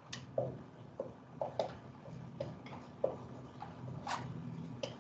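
Dry-wipe marker writing digits on a whiteboard: a string of short, irregular squeaks and ticks as each stroke is drawn, over a low room hum.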